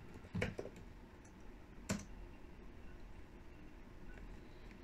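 A few faint keystrokes on a computer keyboard as a word is typed, short sharp clicks near the start and about two seconds in.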